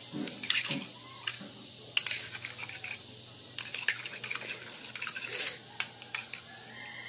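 A metal spoon clinking and scraping against a white ceramic bowl in several short clusters of quick taps.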